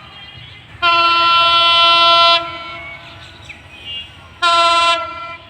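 Train locomotive horn sounding twice as the train departs: a long blast of about a second and a half, then a short blast near the end. A low rumble runs underneath.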